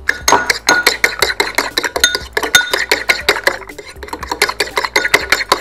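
A metal fork beating eggs in a ceramic bowl: rapid clinks of the fork against the bowl, several a second, with the bowl ringing briefly after the strikes.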